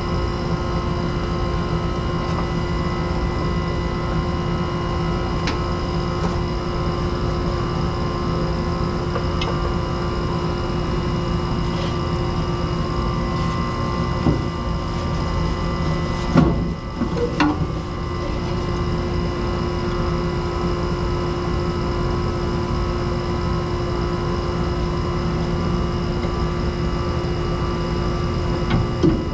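Steady machine drone with several constant tones over a low rumble, like a running motor or fan, broken by a few brief knocks and clatter about halfway through.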